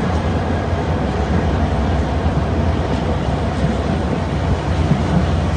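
Passenger coaches of an intercity train rolling past at speed: a steady, loud noise of wheels running on the rails.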